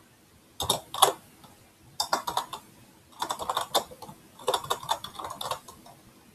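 Computer keyboard typing: clicking keystrokes in four quick runs with short pauses between.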